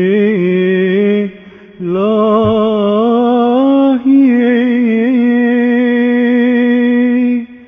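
Solo voice chanting an Orthodox liturgical melody in Turkish: a short phrase, then a longer ornamented phrase that settles onto a long held note near the end.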